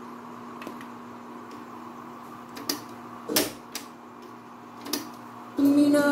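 Push-button clicks from the Akai stereo receiver's and cassette deck's controls being pressed, a handful of separate clicks over a faint steady hum. About five and a half seconds in, music starts playing loudly.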